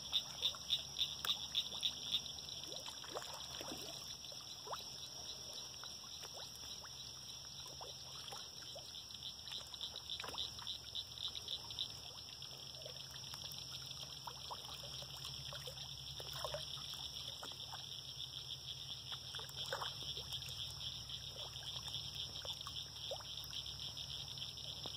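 A steady high-pitched frog chorus with a fast pulsing trill, louder with about three pulses a second in the first two seconds. Faint small plops of fish taking food at the water surface come through it now and then.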